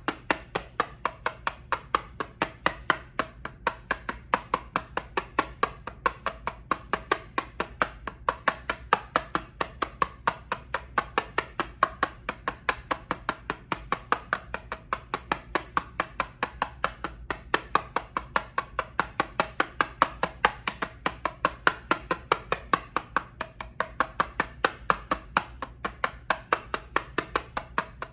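Fingernails tapping on a plastic eyeshadow palette in a steady rhythm of about four taps a second.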